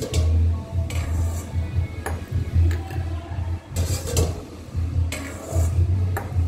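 A steel ladle scooping liquid from a stainless steel pot and pouring it into a glass jar of peeled lychees. It knocks and clinks against the metal pot about half a dozen times, with sloshing between the clinks.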